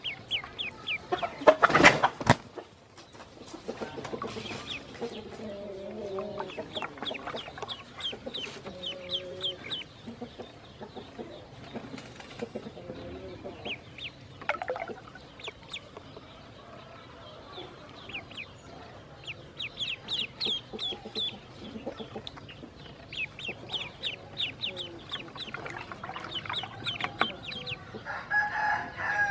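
Ducklings peeping: runs of short, high chirps that come and go, with a brief loud burst of noise about two seconds in.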